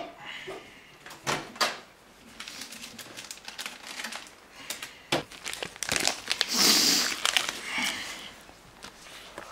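Plastic crisp bag crinkling as a hand rummages in it, loudest for about a second near two-thirds of the way through. Two sharp knocks come about a second and a half in.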